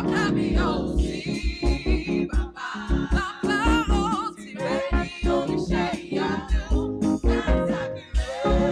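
Gospel praise music: voices singing over a band with chords and a steady kick-drum beat.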